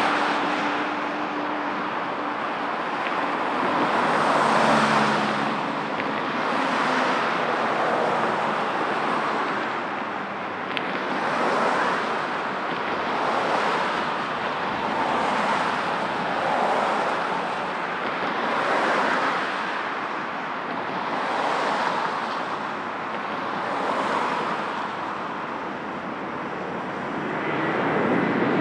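Jet noise from an Airbus A330-243's two Rolls-Royce Trent 700 turbofans at takeoff power: a steady rushing roar that swells and fades about every two seconds. It grows louder near the end as the airliner climbs overhead.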